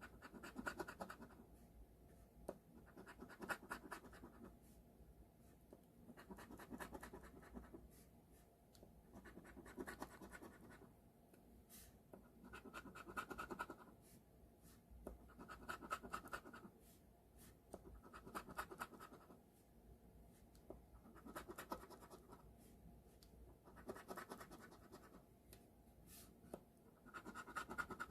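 Scratch-off lottery ticket being scratched, about ten short bouts of rapid scraping roughly every three seconds with pauses between.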